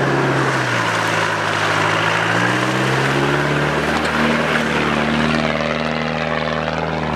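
Land Rover Discovery turbodiesel engine revving under load as it drives through off-road terrain, its pitch rising and falling with the throttle.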